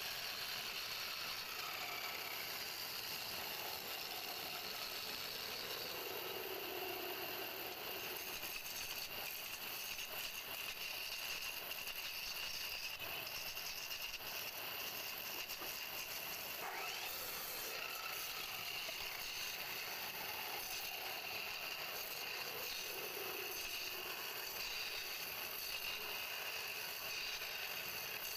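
Wood lathe turning a pale wood blank while a hand-held chisel cuts into it: a steady hiss of the tool shaving wood, with the lathe running underneath.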